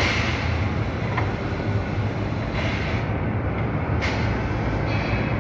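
Kinetic 5000 CNC machine's CAT-50 spindle head and automatic tool changer running, with a steady machine hum. Short hisses of compressed air come at the start and about two and a half seconds in, a sharp one about four seconds in, and a light click about a second in.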